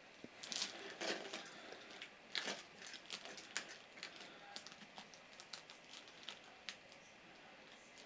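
Faint handling noise: soft rustling and scattered small clicks of plastic and rubber as a new toilet fill valve and its rubber seal are turned over in the hands.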